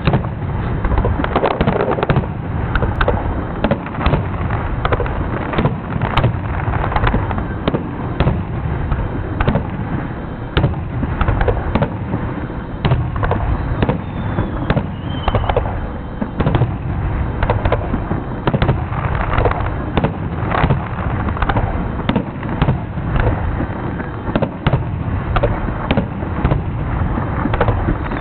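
Aerial fireworks shells bursting in rapid, near-continuous succession during a finale: a dense run of booms and cracks with hardly a pause between them.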